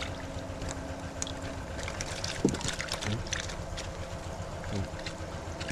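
Steady rush of flowing water with a low rumble, while decoy ayu are being netted from a holding tank. A low hum stops about one and a half seconds in, and a few short murmured voice sounds break through.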